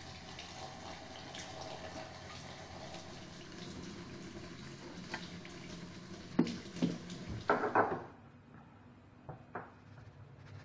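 Kitchen sounds: a steady rush like water running from a tap, then several sharp knocks and a clatter about six to eight seconds in as whole garfish are picked up off the counter and cutting board. A couple of small clicks follow near the end.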